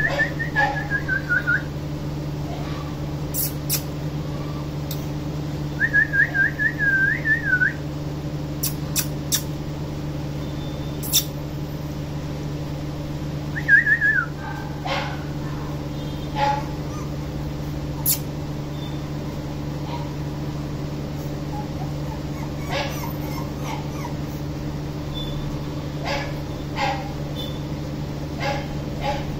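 French bulldog puppy whimpering in short, high, wavering whines that fall in pitch, in three bouts: at the start, about six seconds in for nearly two seconds, and briefly around fourteen seconds. A steady low hum runs underneath.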